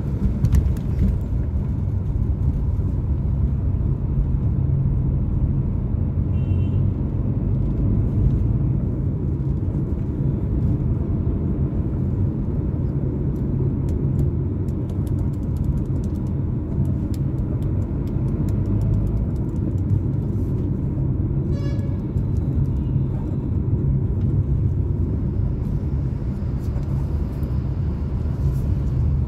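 Steady low engine and road rumble heard from inside a moving car's cabin. Two brief higher tones break in, about 7 and 22 seconds in.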